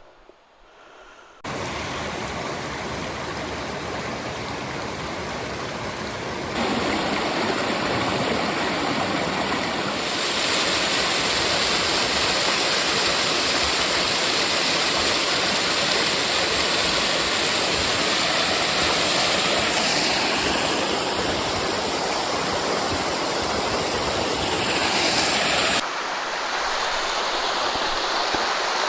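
Water of a small, thin waterfall falling and splashing, a steady rush heard across several spliced shots that step suddenly up and down in level, after a brief quiet moment at the start.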